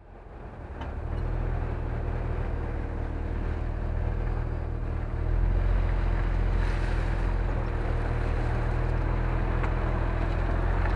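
Subaru Outback 3.0R's EZ30 flat-six idling steadily through its stock exhaust, a low, even rumble from the tailpipe. It fades in over the first second and rises slightly about five seconds in.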